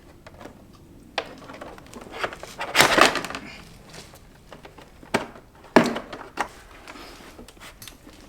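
Plastic motorcycle fairing panels being handled and fitted: scattered sharp clicks and knocks, with a longer scraping rustle about three seconds in.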